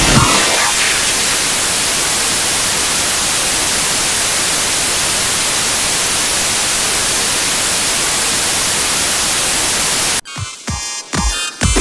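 Television static: a steady, even hiss of white noise that cuts off abruptly about ten seconds in, giving way to choppy, stuttering bursts of music.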